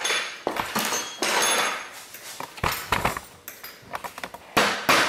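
Metal tools and parts clinking and clattering on a steel workbench. Near the end, hammer blows begin at about three a second, flattening the bent tabs of the hub lock nut's locking tab washer.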